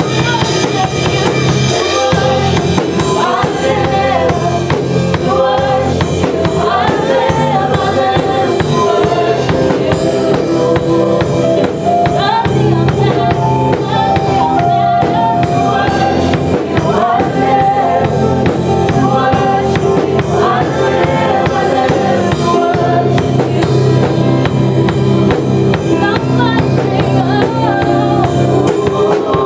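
Live worship band playing gospel-style praise music: a drum kit keeps a steady beat under singing and other instruments.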